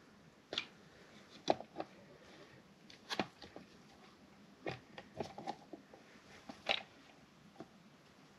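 Light, irregular clicks and taps of plastic parts being handled: a plastic fuel pump module housing, its flange and wiring, worked by gloved hands. There are about a dozen short knocks at uneven intervals, none in a rhythm.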